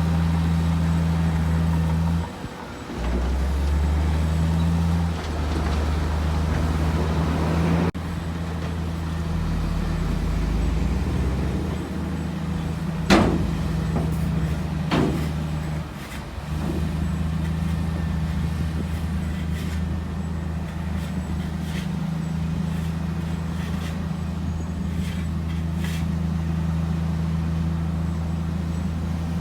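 Heavy diesel engine of earthmoving machinery running steadily under load, its pitch shifting a few times, with two sharp clanks about two seconds apart midway through.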